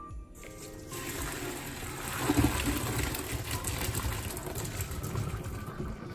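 Hot pasta water and short tube pasta poured from a saucepan into a stainless steel colander in a steel sink, the water gushing and splashing as it drains through. It starts about half a second in and is loudest a couple of seconds in.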